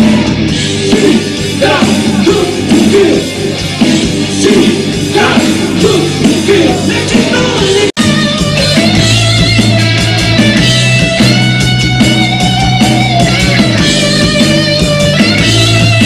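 Live rock band playing: electric guitar, bass guitar and drums under a male lead vocal. About halfway through, the sound cuts out for an instant and picks up again with held guitar and vocal notes.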